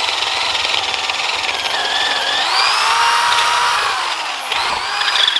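Electric drill with a 1¼-inch wood bit boring through the bark into a log. The motor runs continuously while chips are thrown out, and its whine dips and rises in pitch as the bit loads up in the wood.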